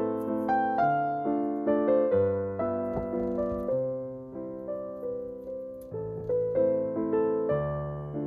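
Background piano music: a gentle melody of struck notes, about two a second, each dying away, over changing bass notes.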